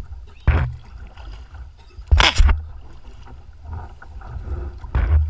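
Lake chop slapping against a kayak hull, with a steady low rumble of wind on the microphone; three louder slaps, about half a second, two seconds and five seconds in.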